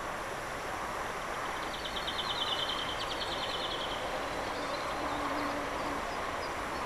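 Steady rushing noise, with a small bird's fast trill of repeated high notes lasting about two seconds, starting a couple of seconds in.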